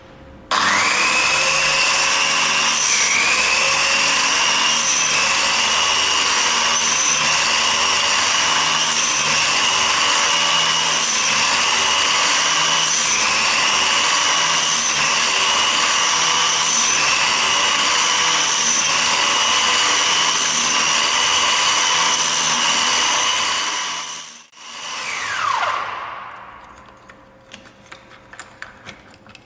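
Belt-driven electric motor and grinding wheel of a chain saw sharpener with automatic feed running, its pitch dipping and recovering about every two seconds as the wheel grinds each cutter in turn and the chain is fed on. About 24 seconds in it is switched off and winds down with a falling whine, followed by a few light clicks.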